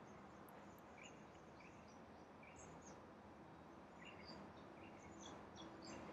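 Near silence: faint room tone with scattered short, faint high chirps, and a faint low steady hum coming in about halfway through.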